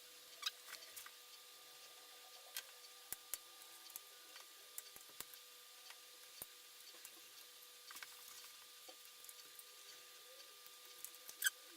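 Sparse faint clicks and light taps of a laptop's internal cable connectors being unplugged and handled inside an opened PowerBook G4, with a couple of sharper clicks near the end.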